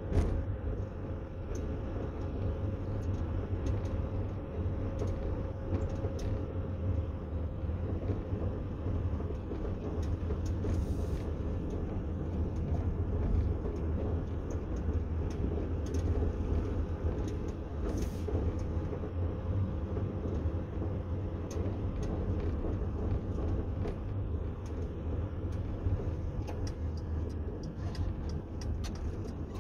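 A car driving slowly, a steady low rumble of engine and tyre noise heard from the moving car. A faint steady hum fades out about seven seconds in, and there are occasional light ticks.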